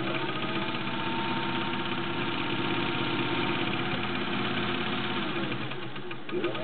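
Singer 201-2 sewing machine running, its potted motor driving the needle directly with no belt, stitching through two layers of fabric in a fast, even rhythm. The motor slows briefly near the end and picks back up.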